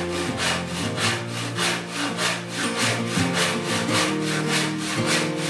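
IRWIN Jack hand saw cutting across a wooden board: a steady run of rasping saw strokes, about three a second.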